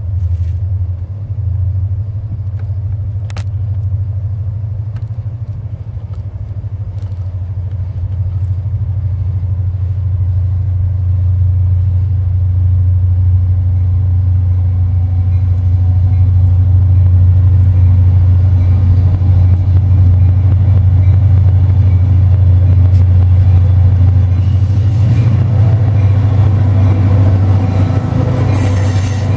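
EMD GP20 diesel locomotives approaching, their engines a deep steady rumble that grows steadily louder as the train nears. Two short hissing bursts come near the end.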